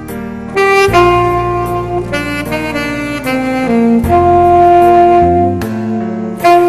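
Alto saxophone playing a slow ballad melody, with held notes and a descending run, over an accompaniment track with bass and light drums.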